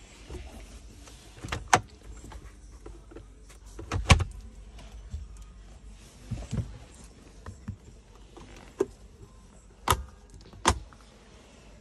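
Hand tapping and handling the interior trim of a BMW X7: a series of sharp knocks and clicks on the dashboard, console and armrest. The loudest comes about four seconds in, and two more come close together near the end.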